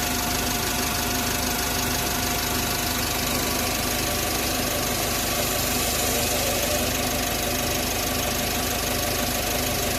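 Isuzu 1.9-litre turbo-diesel engine running at a steady speed, with a steady howl from its turbocharger sounding over the engine note.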